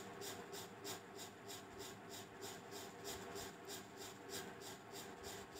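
Spatula faintly scraping and stirring chopped coconut pieces across a metal pan as they are dry-roasted, in many quick, even strokes.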